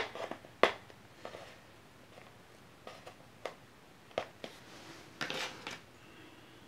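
Hands handling and opening a small cardboard box: scattered light taps and clicks, loudest right at the start, with a brief rustle about five seconds in.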